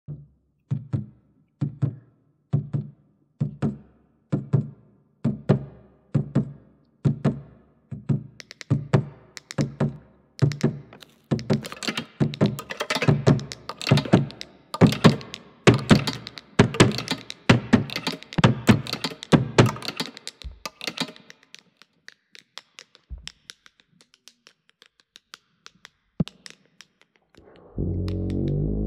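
Rhythmic thuds, about one a second, that build into a denser clatter of knocks and clicks, then thin out to scattered clicks. A steady droning tone with several held pitches comes in near the end.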